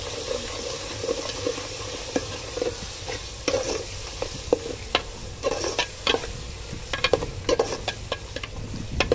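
A ladle stirring masala and curd frying in a metal pot, scraping and knocking against the pot again and again over a steady sizzle.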